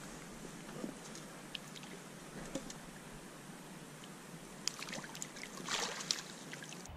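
Shallow river water running steadily, with a few light splashes from a small hooked brown trout thrashing at the surface. The splashes are strongest near the end, as the fish is drawn into a landing net.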